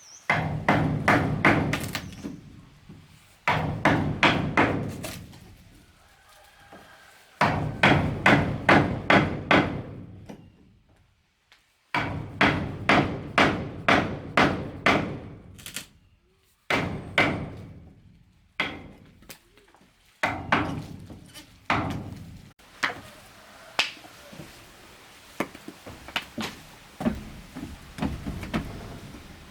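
Hammer striking wooden planks in quick runs of about four blows a second, each run starting and stopping abruptly, with lighter, sparser taps near the end.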